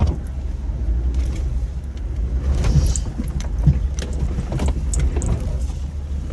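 Jeep engine and drivetrain running with a steady low rumble while crawling over trail terrain. Scattered clicks and knocks come mostly between about two and a half and five seconds in.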